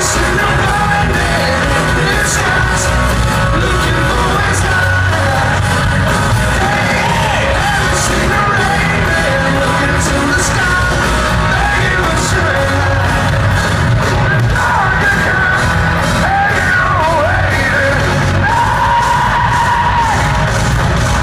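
Hard rock band playing live in a large arena: electric guitars, drums and a sung lead vocal, with the echo of the big hall.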